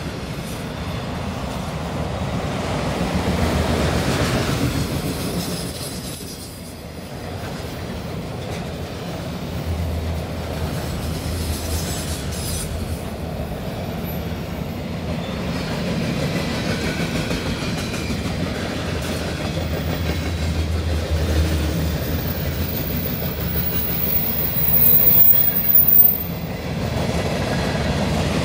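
Freight cars of a passing freight train (autoracks, covered hoppers, boxcars and gondolas) rolling by: a steady rumble with steel wheels clacking over the rail joints, swelling and easing as the cars pass. A brief high-pitched wheel squeal comes near the end.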